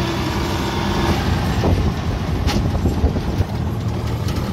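Motorcycle tuk-tuk's small engine running steadily while under way, with road noise from the dirt road, heard from the passenger seat. There is one brief knock about two and a half seconds in.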